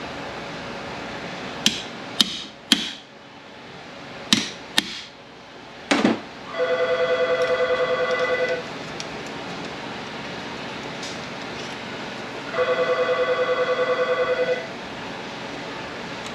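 Sharp metal knocks from a slide hammer pulling a seal out of the front of an MT82 manual transmission, about six strokes in the first six seconds. A telephone then rings twice, each ring about two seconds long with a pause of about four seconds between them.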